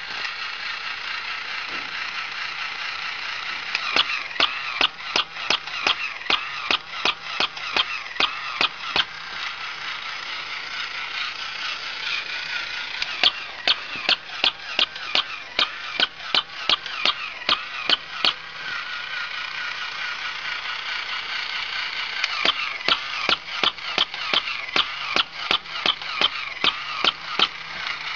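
Battery-powered walking plush puppy toy: its small motor and gears whirring as it walks, with three spells of rapid clicking at about four to five clicks a second.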